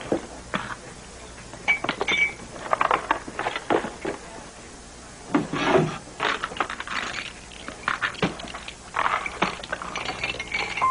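Papers and small desk items being handled and put into a cardboard box: irregular knocks, clicks and rustles with short pauses between them.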